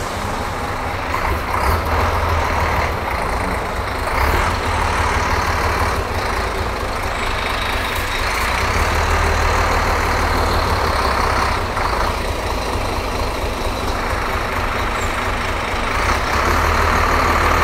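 Intercity coach's diesel engine running at idle: a steady low rumble, with a rushing noise above it that swells and fades a few times.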